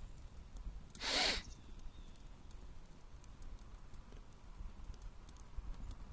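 Tire fire crackling and popping with scattered sharp ticks over a low rumble, and a brief loud hiss about a second in.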